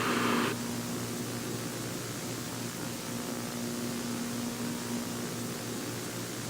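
Steady static hiss with a faint low hum underneath, after a brief louder burst of noise in the first half second.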